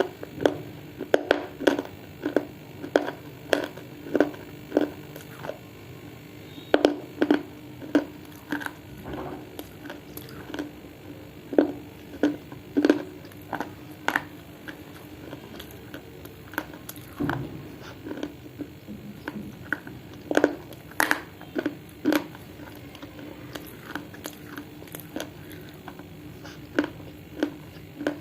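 Close-up crunching as a person bites and chews hard, dry clay: crisp crunches, about two a second in runs, with short pauses between.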